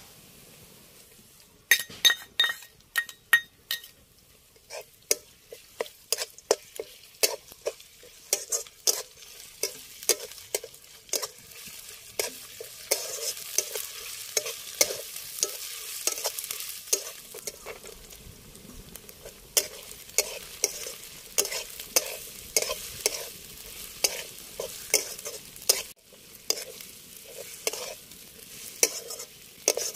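A long metal spatula stirring and scraping chicken and vegetables frying in a metal kadai, clinking against the pan about twice a second over the sizzle of the frying. The first few strikes, about two seconds in, ring like metal tapped on metal.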